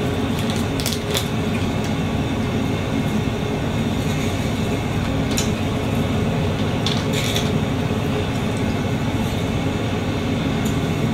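Steady rumble of engine and road noise inside a semi-truck cab on the move, with a few faint clicks over it.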